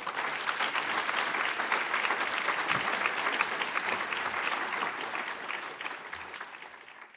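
Audience applauding, a dense clatter of many hands clapping that fades away near the end.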